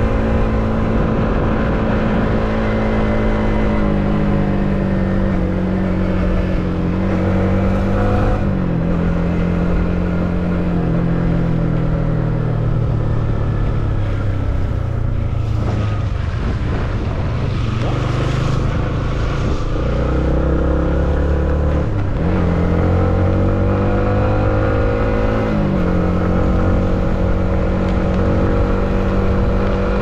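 Yamaha MT15's 155 cc single-cylinder engine running under way, its pitch climbing and stepping down at each gear change, falling low in the middle and rising again near the end.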